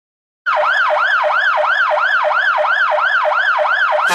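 Elektro Arola Ulvo-Sirra Pro electronic siren through an LBH-100 100-watt speaker, starting about half a second in with a fast yelp: quick rising-and-falling pitch sweeps, about three a second.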